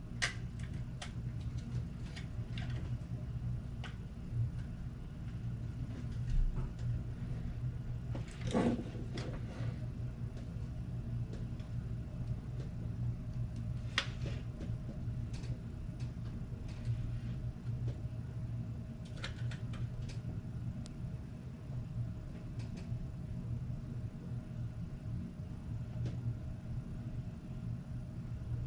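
Steady low background hum with a few faint, scattered clicks and taps from small parts being handled.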